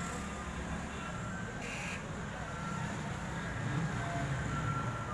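Belarus 510 tractor's diesel engine idling with a steady low rumble. A brief hiss comes about two seconds in.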